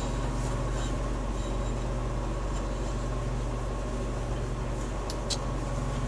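Metal lathe running steadily while turning down a steel tube, a low even hum, with two light clicks about five seconds in.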